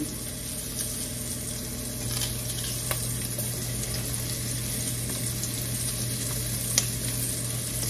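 Onion pieces sizzling in a little leftover chicken-frying grease in a stainless skillet: a steady frying hiss, with a couple of faint clicks.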